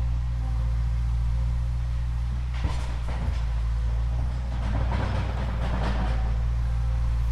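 A small motor humming steadily, with bursts of crackling rattle about two and a half seconds in and again from about four and a half to six seconds.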